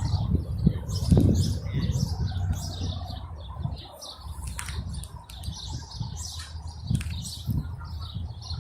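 Small birds chirping over and over in the background, over an uneven low rumble.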